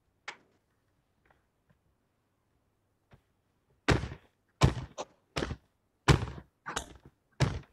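A run of about six loud thuds, like knocks on a desk, starting about four seconds in, picked up by a participant's microphone on a video call.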